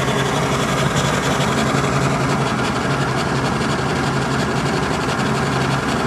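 Boat engine running steadily, a constant low hum under rushing noise.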